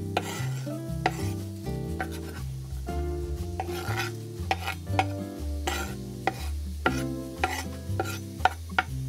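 Chopped onion swept off a wooden board into hot olive oil, sizzling, then stirred with a slotted spatula that clicks and scrapes against the pan. Background music with a low, stepping bass line runs underneath.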